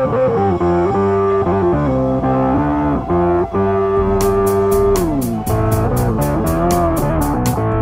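Looped background music: a guitar melody with bent, sliding notes over a bass line. A fast, even percussion tick comes in about four seconds in.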